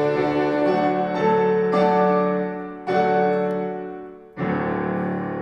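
Piano playing the closing chords of a classical piece: several struck chords, then a final chord about four and a half seconds in, left to ring and fade.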